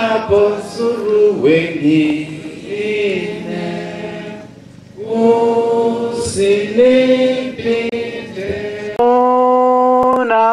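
Congregation singing a slow hymn together without accompaniment, in long held notes, with a short break between phrases about four and a half seconds in.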